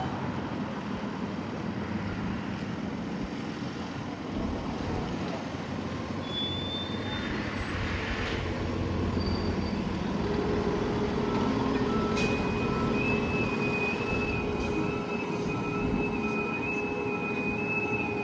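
Fire engine and rescue truck running as they drive, a steady heavy engine and road noise. About twelve seconds in a steady high tone with a repeating beep comes in over it.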